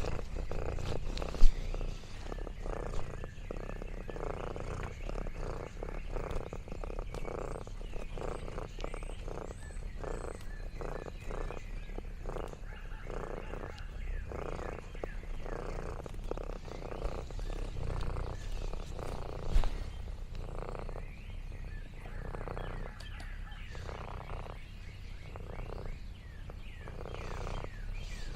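Domestic cat purring close to the microphone, the purr pulsing in a steady rhythm with each breath. A sharp knock about a second and a half in.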